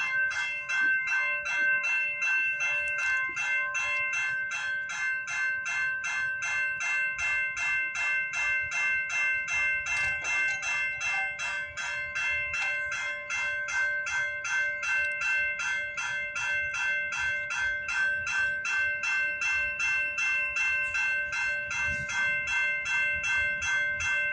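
Railway level-crossing warning bell ringing in rapid, evenly spaced strokes. The crossing is activated with the gates down, signalling an approaching train.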